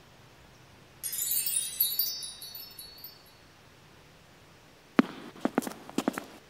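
Wind chimes ringing in a bright shimmer that starts about a second in and fades away over about two seconds. Near the end comes a quick run of sharp knocks.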